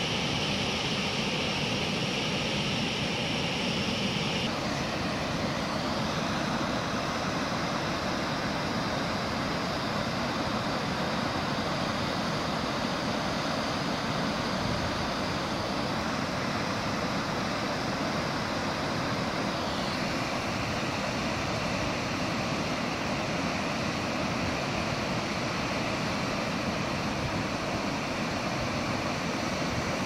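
Steady rush of a mountain stream running over rocks in a gorge, a continuous even roar of water.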